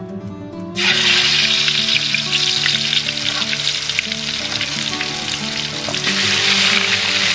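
Pieces of fish slid into hot oil in a wok, setting off a sudden loud sizzle about a second in that keeps on crackling. A fresh surge of sizzling comes about six seconds in as more pieces go in.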